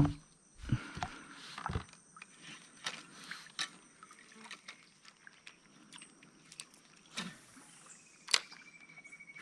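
Faint, scattered knocks and clicks of fishing tackle and gear being handled aboard a plastic kayak, with a few soft thumps in the first two seconds and two sharper clicks near the end.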